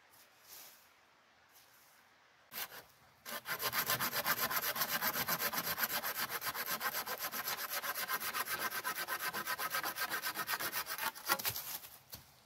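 Hand saw cutting through a thin wooden pole in rapid, even back-and-forth strokes. A couple of short knocks come first, then the sawing starts about three seconds in and stops about a second before the end.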